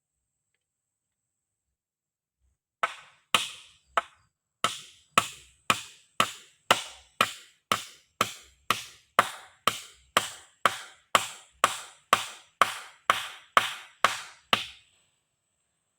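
Wood being chopped with a blade: about two dozen sharp strikes at a steady two per second, starting about three seconds in.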